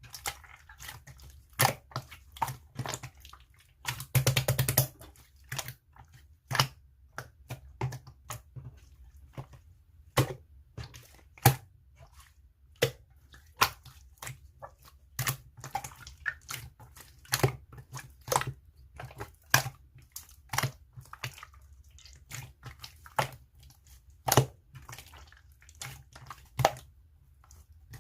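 Slime being pressed and folded by hand, giving sharp popping clicks from trapped air about once or twice a second, with a quick crackling run of pops about four seconds in.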